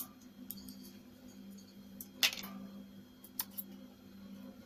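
Small metal clicks and taps as the spring-loaded screws of a laptop's CPU heatsink are lifted out by hand and set down: a few separate clicks, the strongest about two seconds in and a quick cluster a little after three seconds, over a faint steady hum.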